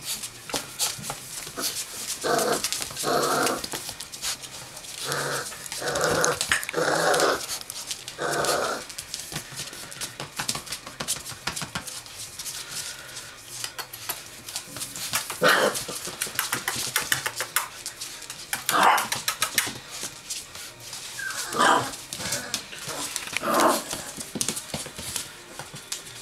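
Presa Canario puppies growling and yapping in play: a run of short growls in the first third, then a few sharper yelps, over many small clicks and scuffs.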